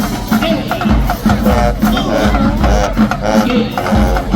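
High school marching band playing, the drums keeping a steady repeating beat with a wavering melody line over it.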